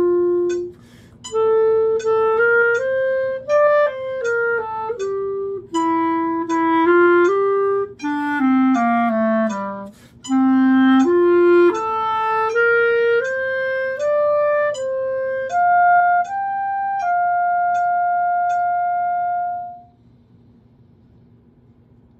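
Solo clarinet playing a slow, lyrical melody in separate sustained notes, at the slowed practice tempo of eighth note equals 80. The phrase ends on a long held high note that stops about two seconds before the end, leaving faint room tone.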